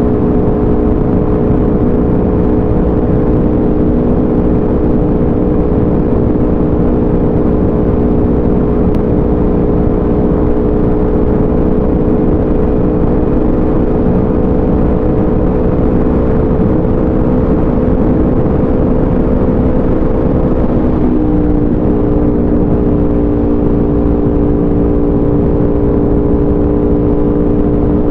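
A 2016 Aprilia RSV4 RF's V4 engine running through an SC-Project CRT full exhaust at steady cruising throttle, with its note creeping slowly higher. The engine note changes suddenly about three quarters of the way through. Wind rush runs under it.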